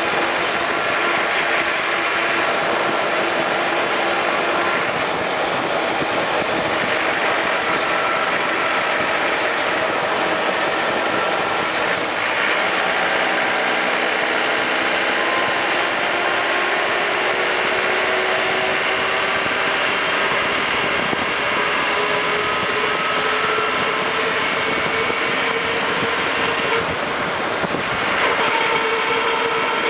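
Land Rover Defender 110 running on the move: a steady mechanical and road noise with several whining tones that slowly rise and fall.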